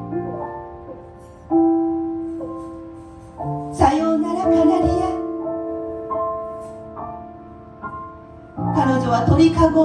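Grand piano playing a slow accompaniment of held chords and single notes that ring and fade. A woman's voice comes in over it twice, about four seconds in and again near the end.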